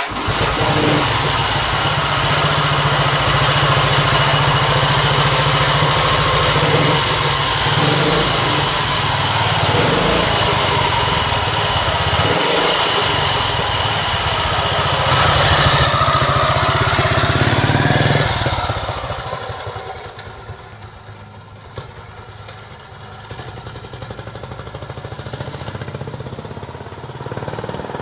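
1936 Husqvarna 40SV's 350 cc side-valve engine kick-started and catching at once, then running loud and steady close up. About two-thirds of the way through it fades to a quieter, more distant engine sound.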